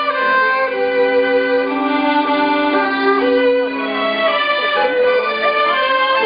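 Instrumental folk dance music: a melody of held notes moving over a steady low drone note, which drops away about four seconds in.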